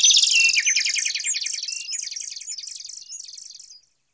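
Bird chirping and twittering sound effect: rapid high trills and chirps that start abruptly, then fade out about four seconds later.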